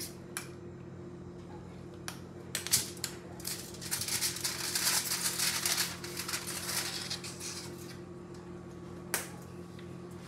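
Aluminum foil crinkling as it is handled, with a dense stretch of crackling for a few seconds in the middle and a few light clicks before and after, over a steady low hum.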